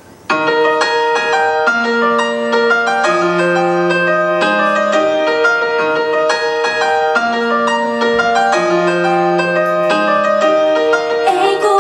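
Piano-led song intro: sustained chords that change every second or so, cutting in suddenly just after the start. A female voice begins singing near the end.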